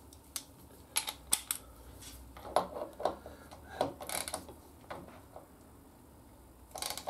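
Irregular metallic clicks and taps of hand tools working on motorcycle brake caliper bolts, a dozen or so scattered through the first five seconds, then a pause and a short cluster near the end.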